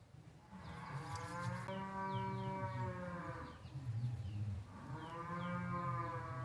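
Cow mooing twice, two long drawn-out calls, with small birds chirping throughout.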